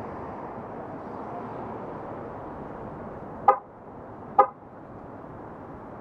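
Two short car-horn toots a little under a second apart, over steady road noise.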